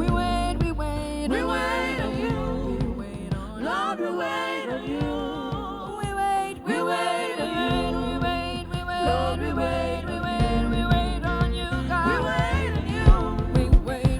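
Gospel worship music: a singing voice over a steady low bass line, with sharp beats coming in near the end.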